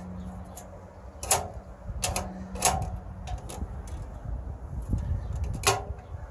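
Four sharp metallic clanks, each with a brief ring, from the thin stainless-steel sheet of a homemade wood stove being handled. A low rumble runs underneath.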